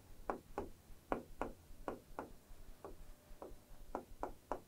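A stylus tapping and clicking on the glass of an interactive display board as handwriting is written on it: about a dozen short, irregular taps, roughly three a second.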